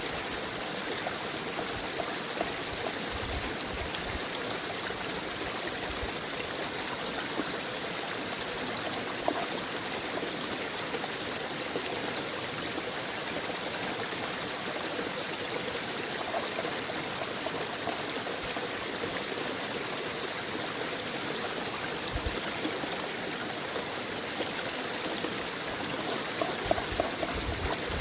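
A babbling brook and small waterfall running steadily, with a few faint low thumps near the end.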